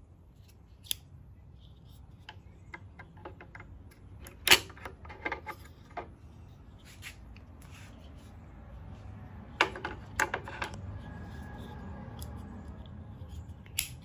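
Plastic clicks and snaps of a MIK quick-release carrier mount as its adapter plate is latched onto and released from the base plate. A sharp snap about four and a half seconds in is followed by a few lighter clicks, with a second group of clicks around ten seconds and one more near the end.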